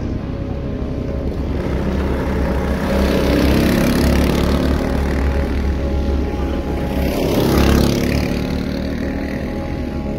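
Kart engines running as karts pass along the track, the engine note swelling louder about three seconds in and again near eight seconds.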